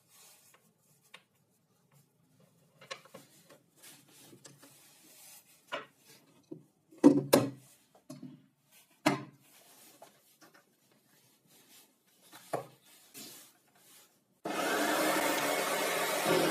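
Wooden pieces being handled, with scattered rubbing and knocking, the loudest knocks about seven and nine seconds in. Music comes in near the end.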